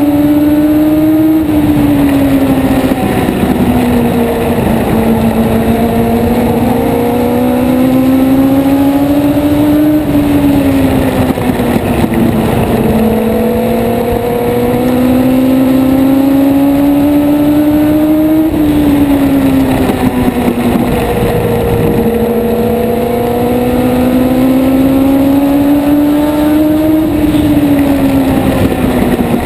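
A race car's high-revving engine heard from onboard at full throttle. Its pitch climbs steadily for several seconds down each straight, then drops sharply as the driver lifts for the turns, four times in a regular lap rhythm.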